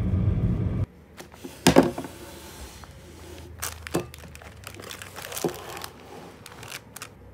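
A second of music cuts off, then plastic packaging crinkles as small items are handled and set down on a table, with a few sharp knocks, the loudest about two seconds in.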